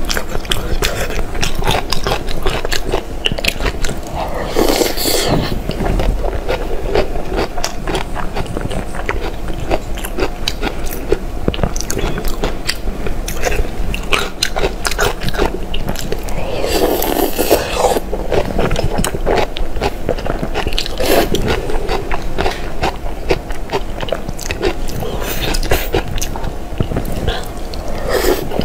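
Close-miked eating: wet chewing and biting with many quick small mouth clicks, and a few louder, longer mouth sounds now and then.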